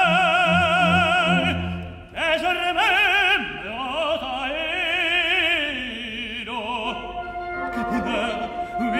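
Operatic tenor singing in French with a symphony orchestra: long held notes with wide vibrato and a rising phrase in the middle, with steady held orchestral notes coming forward near the end.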